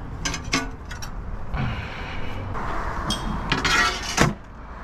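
Large broken glass panes being picked up and handled: scraping and clinking of glass against glass and debris, with several sharp knocks, the loudest near the end.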